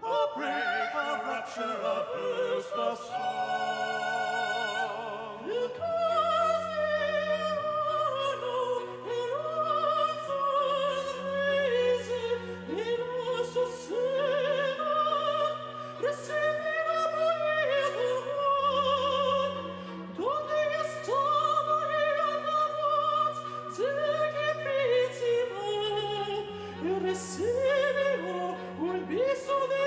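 A high solo voice singing opera in English with a wide vibrato, phrase after phrase. Underneath, instrumental accompaniment holds long, low sustained notes that change every second or two.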